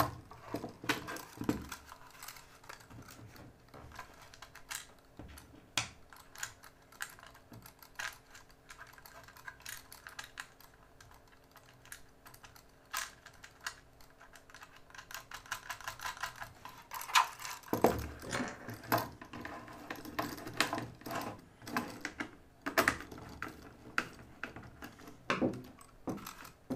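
Small metal screws, nuts and washers clicking and tapping against a 3D-printed plastic part as they are fitted by hand, in a long run of scattered ticks. About two-thirds of the way through the handling gets busier, with louder knocks and clatter of the plastic assembly being turned over.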